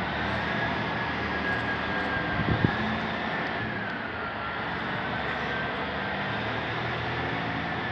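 Steady machinery drone with a thin high whine that wavers slightly in pitch, and a single brief knock about two and a half seconds in.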